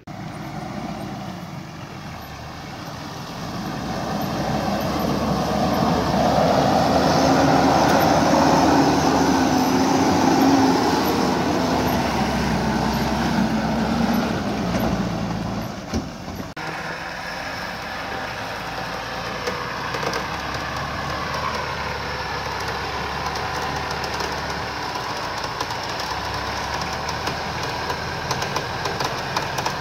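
Mitsubishi Triton pickup's engine running hard under load as the truck works through deep mud, swelling a few seconds in and staying loud for about ten seconds. After a sudden break about halfway, a steadier, somewhat quieter running sound goes on to the end.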